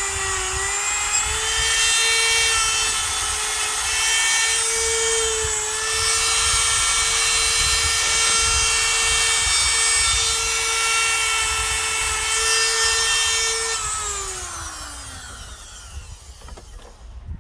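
Grinder running steadily as it grinds down a fresh weld on a steel ball shaft, then switched off about fourteen seconds in and spinning down.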